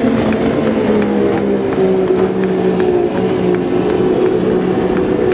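Wooden racing powerboat's engine running flat out as the boat passes at speed, its pitch sliding slightly lower as it moves away.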